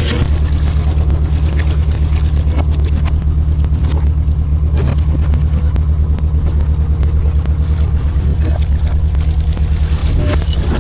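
Boat engine running steadily with a low, fast-pulsing drone, with scattered light clicks and knocks over it.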